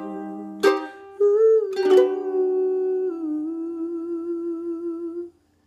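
Ukulele strummed in two final chords while a woman hums the song's closing notes: a long held note with vibrato that steps down in pitch once and stops a little after five seconds in.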